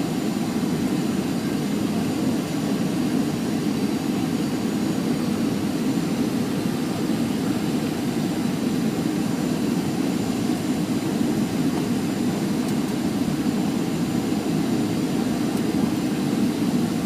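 Boeing 737 cabin noise: jet engines and airflow, a steady low rumble with a faint thin high whine.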